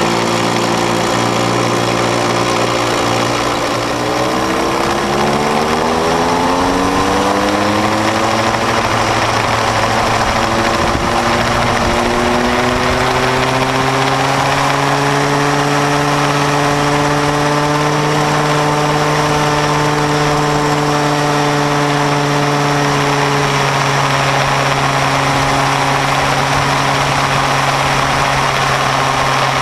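Bambino go-kart's small two-stroke engine, heard from on board the kart. It climbs in revs about four seconds in, drops back, climbs again from about ten seconds, then holds high and eases off slightly near the end, with a steady hiss over it.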